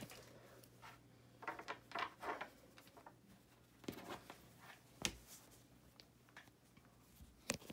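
A cotton onesie being handled and folded in half on a tabletop: soft fabric rustles, with two sharp knocks about five and seven and a half seconds in. A faint steady hum runs underneath.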